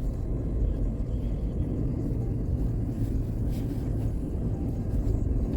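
Toyota 4Runner driving over frozen lake ice, a steady low rumble of the vehicle.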